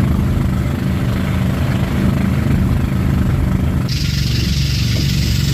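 Engine of a motorized outrigger banka boat running steadily under way, with water rushing past the hull. About four seconds in the sound changes abruptly to a take with more hiss over the same engine drone.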